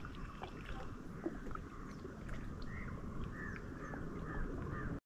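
Birds calling in many short, curving chirps, thickest through the middle and later part, over a steady low outdoor rumble.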